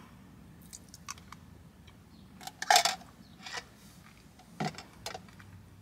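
Light handling noises: a few small clicks and knocks, with one short noisy burst about three seconds in, over a faint steady hum.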